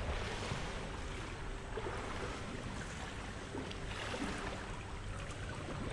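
Pool water sloshing and splashing as swimmers stroke through it, with the water lapping close to the microphone at the surface. It is a steady wash of water noise.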